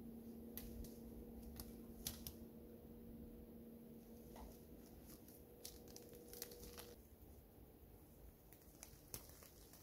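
Near silence, with faint scattered crackles and clicks from dry leaf litter and twigs as a bicycle is walked and handled in a forest. A faint steady hum stops about seven seconds in.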